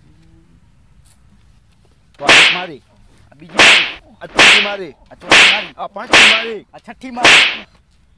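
Six loud slap sound effects dubbed over a comedy scene, each a sharp crack with a short falling tone, coming one after another over about five seconds.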